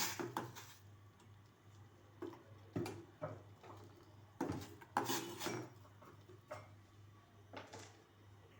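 A metal spoon clinking and knocking against a cooking pot in irregular, separate strikes, with a faint steady low hum underneath.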